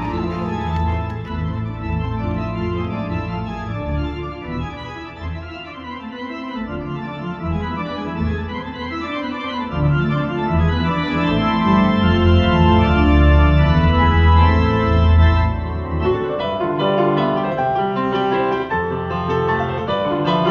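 Live keyboard music: sustained organ-sound chords over a deep bass played on a Korg Nautilus workstation synthesizer. Near the end it gives way to a grand piano, with more sharply struck notes.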